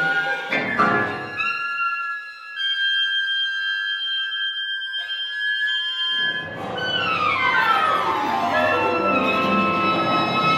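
Contemporary classical chamber music from a quintet of flute, clarinet, piano, violin and cello. A loud accented attack about half a second in gives way to high held tones with nothing underneath. Near the end the full sound returns with several lines gliding down in pitch.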